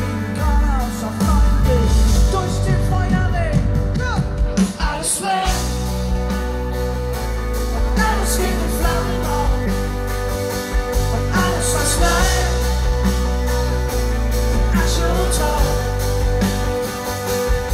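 Live pop-rock band playing: drums, bass and electric guitars, with singing at times, heard from among the audience.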